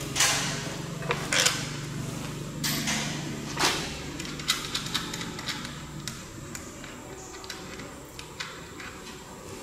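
Scattered clicks and knocks of hand tools and metal engine parts being handled while unbolting an engine's intake manifold, the louder knocks falling in the first four seconds.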